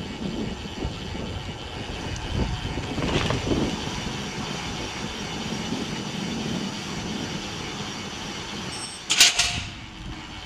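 Steady motorway traffic noise heard from a bicycle riding beneath the road, with a sudden loud rush of noise about nine seconds in.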